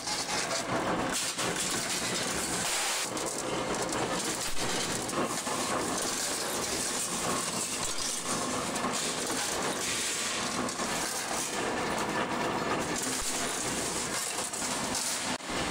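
Workshop machinery running with a dense, steady metallic clatter and hiss.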